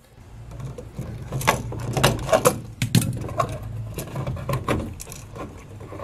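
Scattered clicks, taps and scrapes of a duplex receptacle and its wires being pushed and tucked into an electrical wall box by hand, over a steady low hum.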